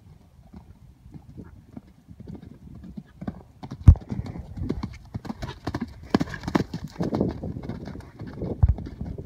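Horse cantering on sand arena footing: hoofbeats, faint at first, then loud and close from about four seconds in.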